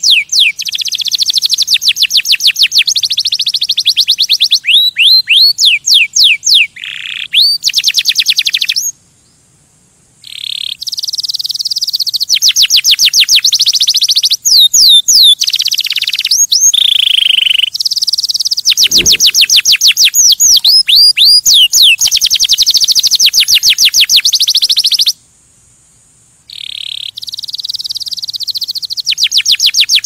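Male canary singing: long, high-pitched runs of fast trills and rapidly repeated notes, broken by two pauses of about a second, about nine seconds in and about twenty-five seconds in.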